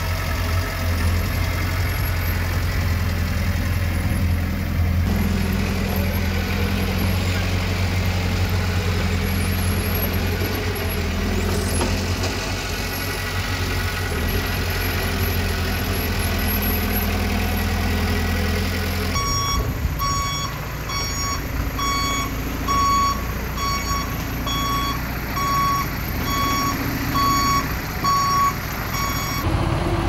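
Heavy diesel machinery engine running steadily. About two-thirds of the way in, a reversing alarm starts beeping over it, a little more than once a second, for about ten seconds.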